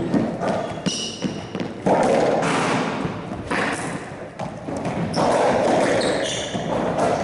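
Racquetball bouncing and thudding off the floor and walls of a hard-walled court, with short high squeaks from players' shoes on the court floor about a second in and again near the end.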